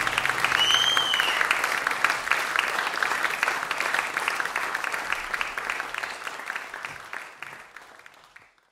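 Audience applause with many hands clapping, and one short whistle about half a second in. The applause fades gradually and dies away near the end.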